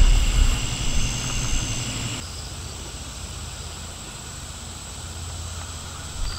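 A 1991 Evinrude 30 hp two-cylinder two-stroke outboard engine running, then dropping abruptly to a much quieter steady sound about two seconds in.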